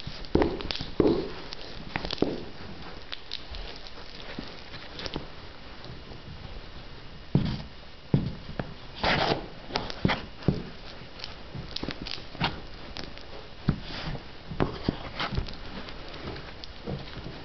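Cowboy boots treading and stomping on a hard floor over a squashed tube: irregular heel and sole knocks, with a few longer scuffs as the soles slide through the smeared contents.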